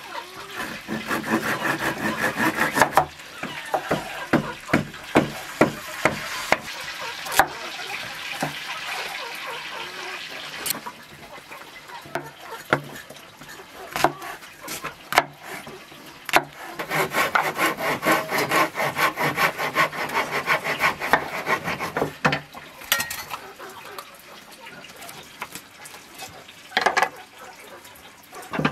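Rapid hand scraping strokes in two long runs, with single sharp knocks in between, from preparing food.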